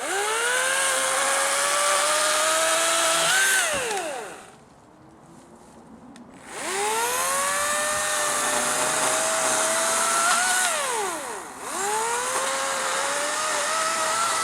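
Battery-powered electric chainsaw revving up with a rising whine, running steadily for a few seconds and winding down, then spinning up again about six seconds in, easing off briefly near the end and picking up once more. Its speed stays fairly steady while it runs.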